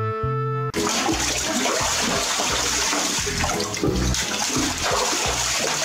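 Water splashing and sloshing in a small tub as a seal pup swims in it, beginning suddenly about three-quarters of a second in, with background music and a steady low beat underneath. Before that, music with held woodwind-like notes plays and cuts off.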